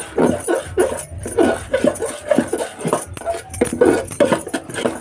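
Metal spoon scraping and knocking against an aluminium pot as it stirs thick rice-flour dough cooking on the stove, in irregular strokes about two or three a second.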